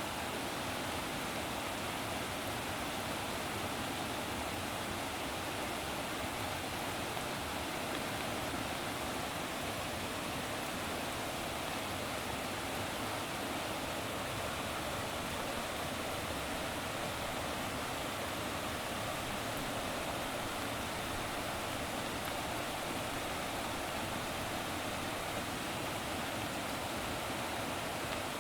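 Steady rushing water, an even unbroken noise with no distinct events.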